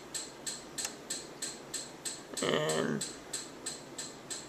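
Steady, rapid ticking, about three sharp ticks a second, with a brief murmur of a voice about halfway through.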